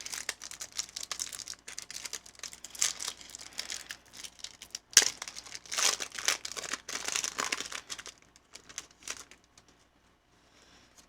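Plastic-foil Pokémon booster pack wrapper crinkling and tearing as it is opened, busy and crackly for most of the time with the loudest rips near the middle, then dying down to faint rustles near the end.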